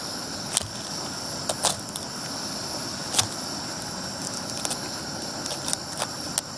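A crab being cleaned with a knife: scattered sharp cracks and clicks of shell and blade, about eight in all, over a steady background hiss.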